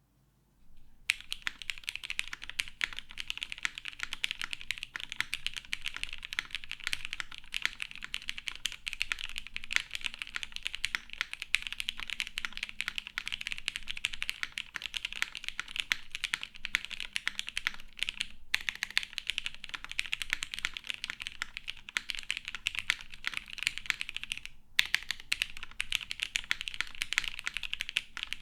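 Fast, continuous typing on a Matrix 8xv 1.2og mechanical keyboard with lubed vintage Cherry MX Black linear switches, an aluminum half plate and GMK keycaps: a dense stream of key clacks that starts about a second in and breaks off briefly twice.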